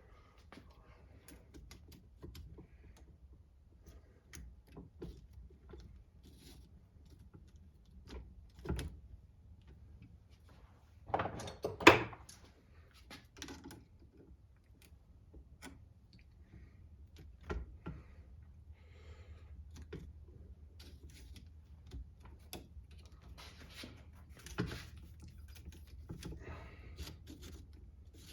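Hand tools and small metal parts of an RC car being handled during disassembly: scattered light clicks and taps, with a louder clatter about eleven to twelve seconds in.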